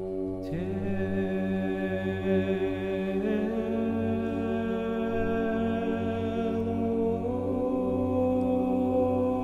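Meditative chant music: a steady low drone under a long held sung tone that comes in about half a second in and steps up in pitch twice.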